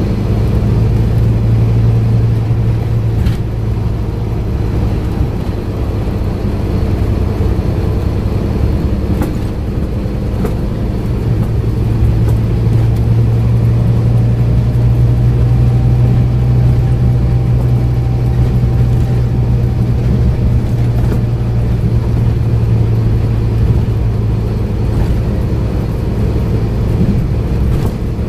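Scania N230UD double-decker bus's five-cylinder diesel engine, with ZF automatic gearbox, droning steadily as the bus drives along, heard from inside the passenger saloon. The low engine note eases off a few seconds in and comes back strong after about ten seconds, with a few light knocks from the bus body.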